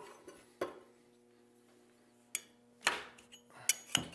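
Irregular sharp metallic clinks and knocks, about six, the loudest near the end, from a hand-turned metal winding jig and the copper ribbon being wound on its mandrel for a Model T magneto field coil. A faint steady hum runs underneath.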